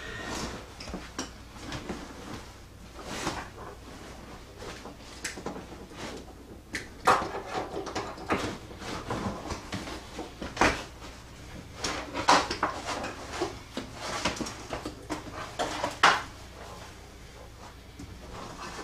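Stiff molded car floor carpet and its padding being pulled up, folded and dragged out of a stripped car floor: irregular rustling and scraping, with several sharp knocks.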